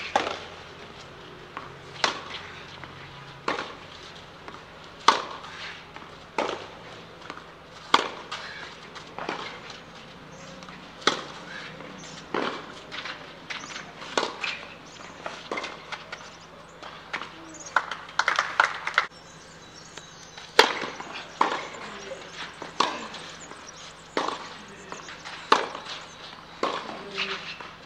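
Tennis ball struck back and forth with rackets in a rally on a clay court: sharp pops about every one to one and a half seconds. A quick run of smaller knocks comes about two-thirds of the way through.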